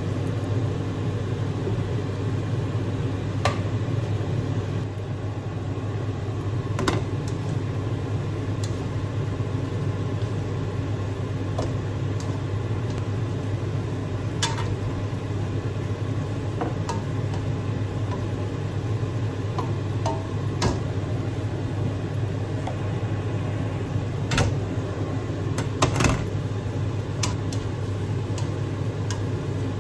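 Steady low mechanical hum, like a kitchen exhaust fan or appliance motor, with about six scattered clicks and knocks of utensils and peeled boiled eggs against a metal wok as the stew is stirred.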